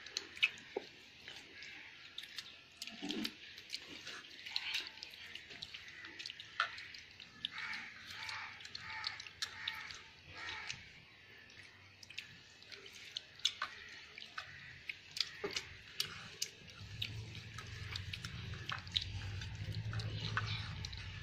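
Dry, charred pumpkin leaves crackling and rustling in small irregular clicks as fingers tear open a coal-roasted leaf parcel on a plate. A low hum comes in near the end.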